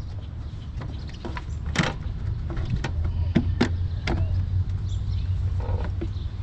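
Sharp clicks and knocks of plastic air intake parts being handled and pressed into place on a car engine, over a steady low rumble.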